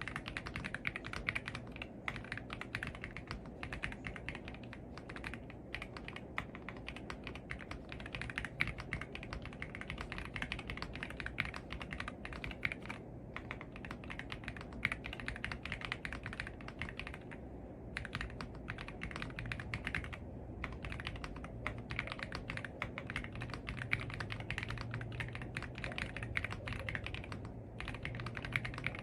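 Fast continuous typing on an AULA F75 gasket-mount mechanical keyboard: a dense run of keystroke clacks with a few short pauses.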